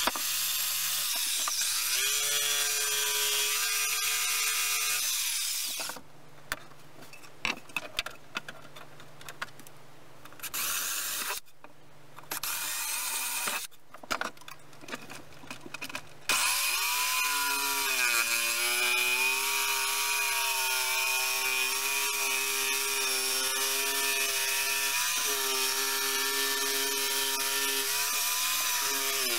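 Corded 380 W electric jigsaw cutting through a softwood board, its motor running with a steady whine. It stops about six seconds in, giving way to about ten seconds of quieter knocks and handling with two short bursts. Then it starts again and cuts on, its pitch dipping briefly soon after.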